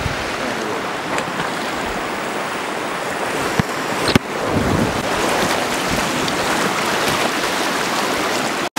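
Steady rush of whitewater river rapids around an inflatable raft. About four seconds in it changes abruptly to a slightly louder, fuller rush.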